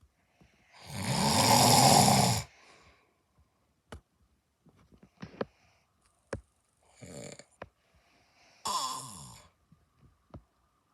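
A man snoring in his sleep: one long, loud snore about a second in, then two shorter, quieter snores near the end, the last falling in pitch. A few faint clicks fall between them.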